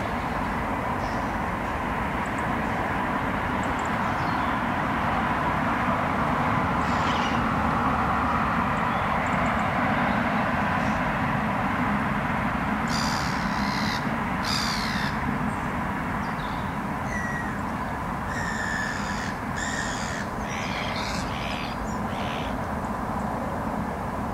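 Steady urban background hum with harsh bird calls that come in short runs, a few just past halfway and more soon after.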